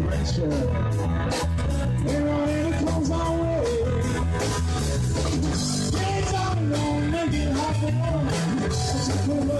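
A live rock band playing electric guitars and drum kit, with a steady beat under a sustained, gliding melody line.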